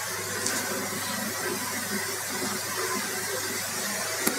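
Steady low hum with hiss, and a single short click near the end.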